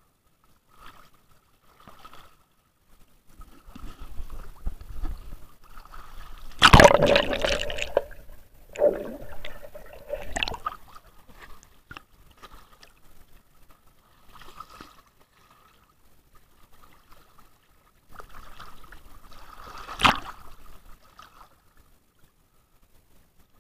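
Water sloshing and gurgling around an action camera held at the surface by a swimmer, as the camera dips in and out of the water. The sound comes in uneven bursts. The loudest splash is about seven seconds in, and a sharp splash comes about twenty seconds in.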